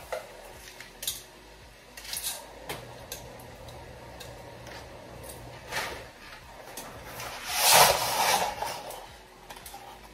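A cardboard box of dry spaghetti being opened and handled: scattered rustles and clicks, then a louder rustling rush for about a second near the end as the dry noodles slide out of the box.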